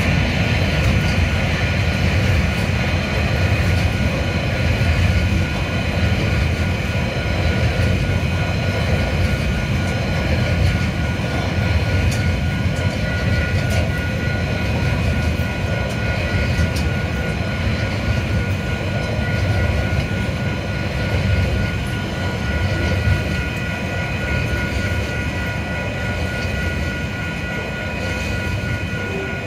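Container wagons of a freight train rolling past over the rails: a steady low rumble with occasional clicks, and a few steady high-pitched tones ringing over it. It eases slightly toward the end.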